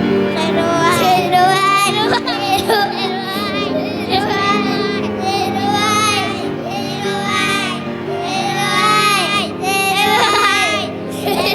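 Young children singing together to recorded backing music with a steady accompaniment.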